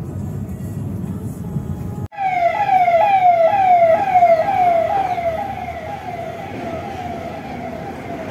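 Steady road rumble inside a moving car. About two seconds in it cuts to a loud siren-like electronic tone that falls in pitch over and over, about twice a second, and slowly fades.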